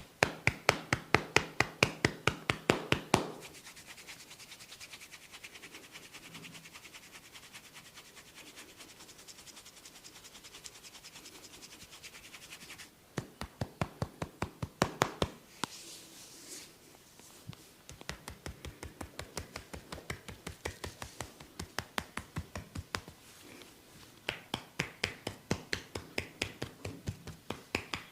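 Rapid rhythmic hand strikes of a barber's massage on the head and body, about six a second. They are loud for the first three seconds and again around the middle, and softer in between, with some scratching and rubbing on hair and skin.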